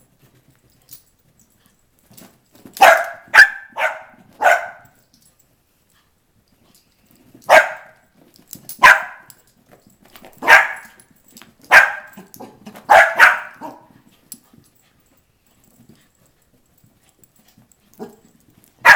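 Small long-haired dachshund barking in excited play while chasing a laser-pointer dot. There is a quick run of four barks, then single barks every second or so, and a quieter stretch near the end.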